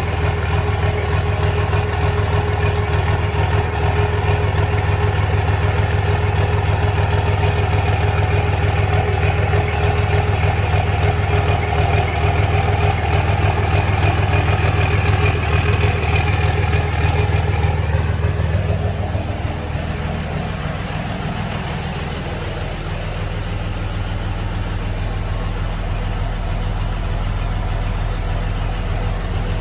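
2006 Cummins 5.9 L inline-six turbo-diesel idling with the rough idle that has set fault codes for the fan clutch and wastegate solenoid. About eighteen seconds in the sound gets quieter and settles to a deeper tone.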